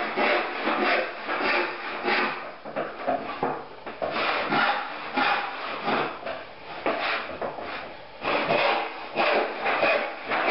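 A freshly sharpened hand saw ripping a board along the grain, cutting in steady strokes of about two a second. Each stroke gives a rasp of the teeth in the wood. The saw is running straight and taking 1.5 to 2 inches per stroke, the sign of a sharp saw.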